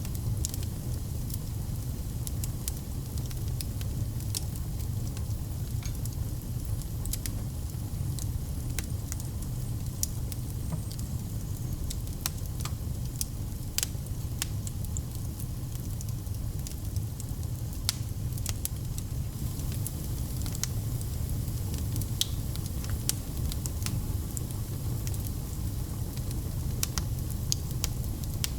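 Wood fire burning in a fireplace: a steady low rumble of flames with frequent sharp pops and crackles scattered irregularly throughout.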